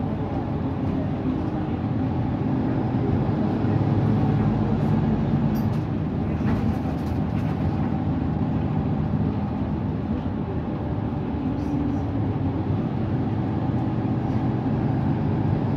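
Mercedes OM936 straight-six diesel engine of a Mercedes-Benz Citaro C2 city bus running steadily with a low, even drone.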